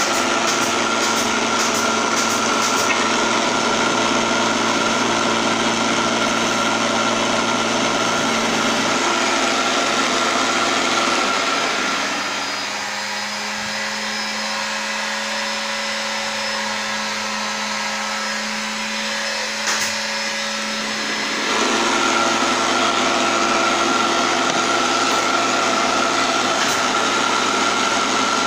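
Benchtop mini wood lathe's electric motor running steadily with a whine, turning a wooden blank. From about twelve seconds in it goes quieter and its pitch changes, and about nine seconds later the louder whine returns. Near the end a turning chisel scrapes the spinning wood.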